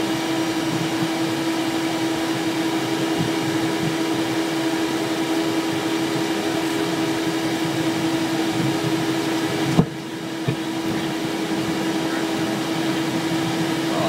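Steady hum with one constant low tone inside the cockpit of a Cessna Citation Excel business jet as it taxis. About ten seconds in there is a click, the noise drops for a moment and then builds back, and a second click follows.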